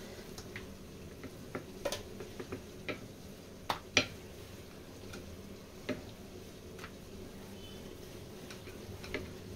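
Wooden rolling pin rolling out dough on a countertop: scattered light taps and knocks as the pin and dough are handled, with a couple of sharper knocks near the middle, over a faint steady hum.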